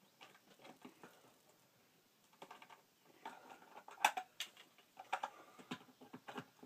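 Scattered small clicks and taps from a stiff wire being worked into the screw terminal of a solar charge controller, with a sharper click about four seconds in.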